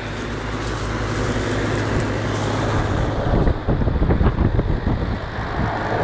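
1993 Janitrol 3.5-ton heat pump outdoor unit running in cool mode: the condenser fan blowing air with a steady low hum from its Bristol reciprocating compressor. From about three and a half seconds in, uneven rumbling comes in over it.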